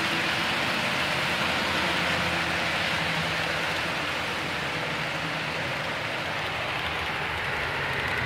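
Model trains running on the layout: a steady whirring hiss of small electric motors and wheels rolling on the track, with a faint hum, easing slightly in the second half.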